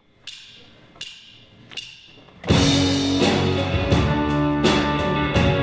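Three evenly spaced percussive clicks count in, then about two and a half seconds in a rock band comes in loudly with drum kit and guitars on a steady beat.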